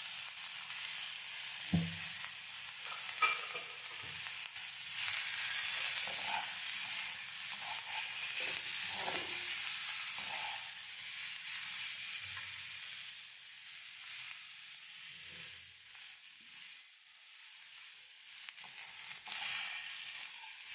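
Chopped vegetables sizzling in hot oil in an iron kadai as they are stir-fried. A metal slotted spatula scrapes and clinks against the pan, with a sharp clink about two seconds in. The sizzle eases off somewhat in the second half.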